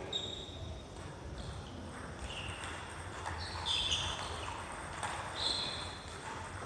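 Sports shoes squeaking on a wooden gym floor during badminton: several short, high squeaks, the loudest a little under four seconds in, over a steady low hum of the hall's ventilation.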